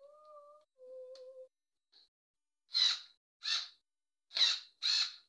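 A small cordless drill-driver whirring briefly twice at a steady pitch in the first second and a half. Then a bird gives four loud, harsh, caw-like calls about half a second apart, louder than the drill.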